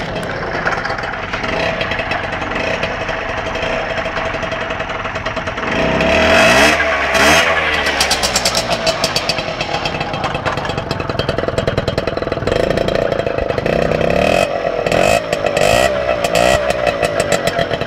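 Piaggio Bravo moped's 49 cc two-stroke single-cylinder engine, fitted with a Proma City Power exhaust, running and being revved: it runs steadily for a while, then rises and falls in rev blips about a third of the way in, and again in a series of quicker blips in the second half.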